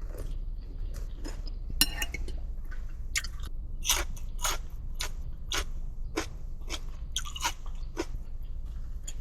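A person biting into crispy fried chicken and chewing it with loud crunches: one sharp bite just before two seconds in, then crunching about twice a second, over a low steady rumble.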